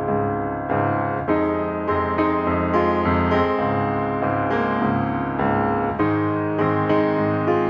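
Background piano music, a gentle melody with notes struck about twice a second.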